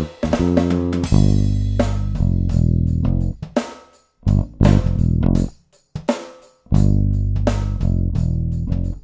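Funk groove on an Ernie Ball electric bass with a Roland V-Drums electronic drum kit: plucked bass lines over a tight beat. The band stops briefly about four seconds in and again about two seconds later.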